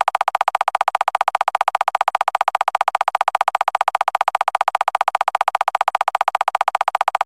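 Electronic railroad crossing alarm tone, pulsing very rapidly at about ten beats a second, then cutting off suddenly near the end.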